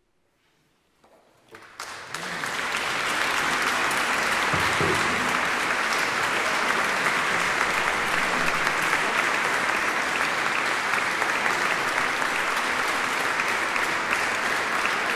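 Audience applause: a moment of near silence, a few first scattered claps about a second in, then full, steady applause from about two seconds on.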